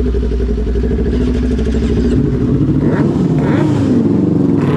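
Sport motorcycle engine running close by, idling steadily, then revving up and down from about two seconds in as the bike pulls away.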